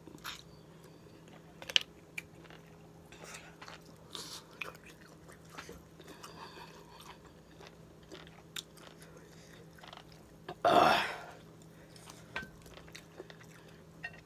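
A person chewing green-lipped mussels close to the microphone, with many small wet mouth clicks. Near the end comes one short, loud burp.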